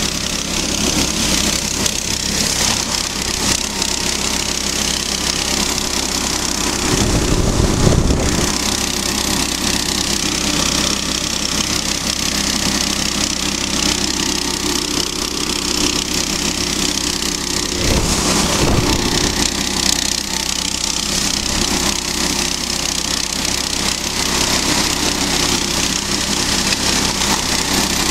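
Small single-cylinder petrol engine of a tracked motor-dog (motorized sled tug) running steadily under load, with the hiss of its track churning through snow and slush. A low rumble rises briefly about seven seconds in and again about eighteen seconds in.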